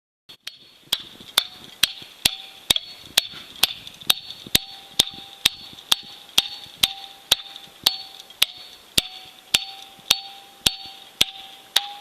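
Piton hammer driving a steel piton into rock: about two dozen evenly spaced metal-on-metal strikes, roughly two a second, each with a ringing tone that climbs slightly in pitch as the series goes on.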